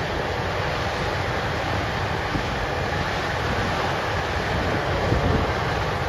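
John Deere X9 combine harvesters running as they harvest barley, a steady low rumble mixed with wind buffeting the microphone.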